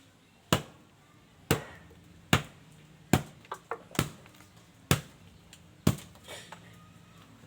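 A series of sharp knocks or chops, about one a second, seven strong ones with two lighter taps between them about halfway through.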